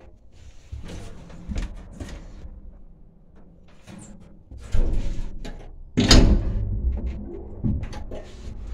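Doors of a Transporta passenger lift being worked: a series of knocks and clunks, with a heavy bang about six seconds in as a door shuts.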